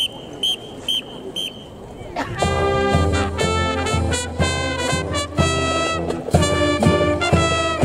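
Three short whistle blasts, then about two seconds in a brass band with saxophone starts playing a lively tune with a strong bass line.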